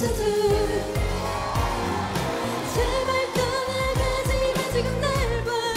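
K-pop ballad-style pop song: a singing voice carrying the melody over a backing track with a steady beat and deep bass.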